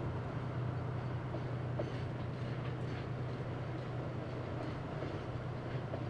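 JR Freight DF200 diesel-electric locomotive hauling a container freight train, its diesel engine running with a steady low drone under the rolling noise of the wagons, with a few faint clicks from the wheels.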